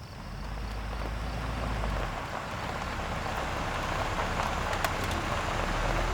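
Car driving: a steady mix of engine rumble and tyre and road noise that swells over the first couple of seconds and then holds level.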